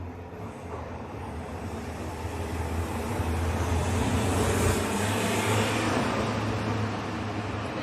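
Road vehicle noise that swells to a peak about halfway through and then eases off, over a steady low hum.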